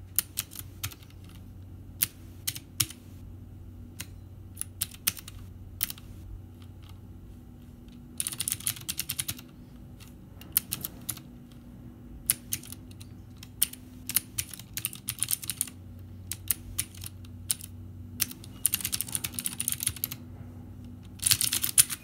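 Typing on a small Vortex Core mechanical keyboard with clicky Cherry MX Blue switches. The pace is uneven, with scattered single keystrokes and pauses, and short runs of fast typing about eight seconds in and twice near the end.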